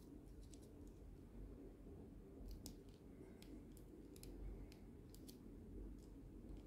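Faint small clicks and taps of a plastic Mechanic Studio MS-24 transforming figure's parts being shifted and pegged into place by hand. About ten scattered clicks, bunched in the middle few seconds, over a low room hum.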